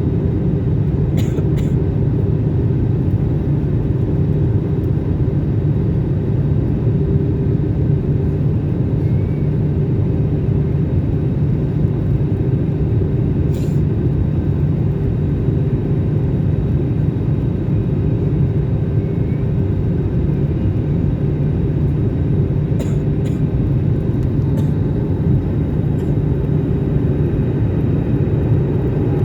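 Steady low rumble of an airliner's engines and airflow, heard from inside the cabin as the plane comes in to land, with a few faint clicks.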